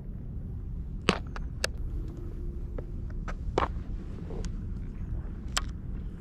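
Several short, sharp clicks and taps from handling fishing tackle, a baitcasting reel and a jighead lure, over a steady low rumble.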